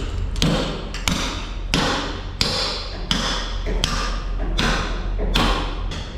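Steady hammer blows on metal, about one every two-thirds of a second, each ringing briefly, over a low steady hum.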